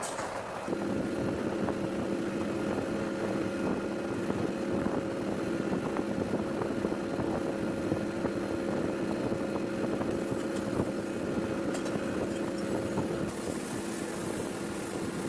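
A steady machine hum with a few fixed pitches that starts abruptly about a second in and runs on.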